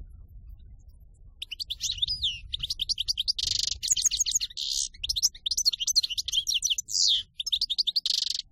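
Caged European goldfinch singing in the 'cante campero' (pure field-song) style. A quick run of twittering notes and slurred sweeps starts about a second and a half in, broken by several short, dense trilled rolls.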